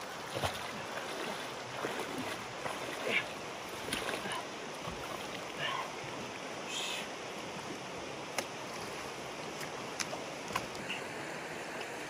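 Shallow stream water running steadily, with splashing and sloshing from wading through it and a few sharp clicks scattered through.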